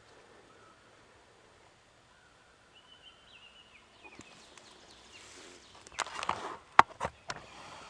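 Close rustling and handling noise from the hunter moving with his gear, ending in a few sharp clicks, the loudest about seven seconds in. A faint high bird call wavers briefly about three seconds in.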